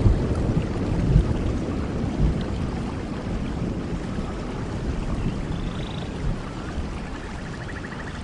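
Rainforest thunderstorm: steady rain with the low rumble of thunder dying away over the first couple of seconds. Faint high animal calls come in near the end, one of them a rapid trill.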